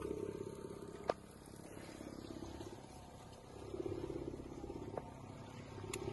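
Boat motor running at trolling speed, a low rapid pulsing that swells and fades. A sharp click sounds about a second in, with a couple of lighter ticks near the end.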